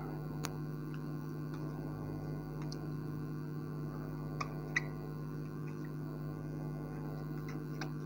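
Steady low electrical hum with a few faint taps and squeaks of a marker writing on a whiteboard, the sharpest about halfway through.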